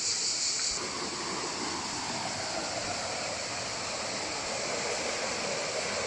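Canyon stream water running over rocks: a steady rush. A high insect buzz fades under a second in.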